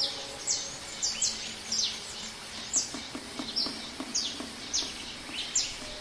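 Jungle ambience: about ten short, high chirps, each a quick downward sweep in pitch, repeating irregularly over a steady background hiss of forest noise.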